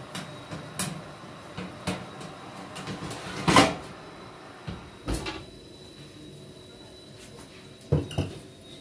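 A series of knocks and thumps, about six in all, with the loudest about three and a half seconds in and two close together near the end. A faint steady high whine sits underneath throughout.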